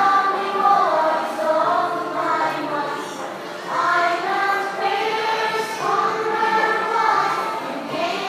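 A choir of young children singing together in phrases of about two seconds each.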